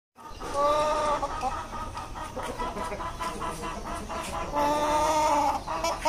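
Aseel hen clucking: two drawn-out calls, one about half a second in and one near the end, with softer short clucks between.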